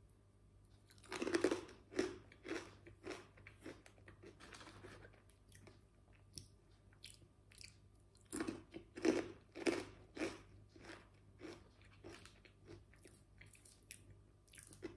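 Close-up crunching and chewing of thick, fry-shaped potato chips. Crisp bites and crunches come in two louder runs, about a second in and again around eight seconds in, with softer chewing between.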